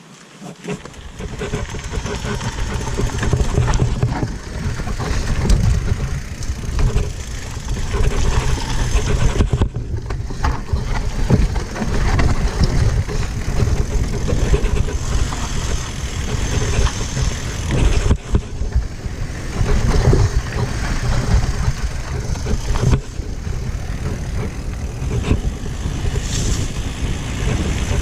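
Wind buffeting the microphone and a mountain bike rattling and clattering over a rough dirt trail at speed on a downhill descent. The sound builds from near silence over the first two seconds as the bike gets going, then stays loud, with many sharp knocks from the trail.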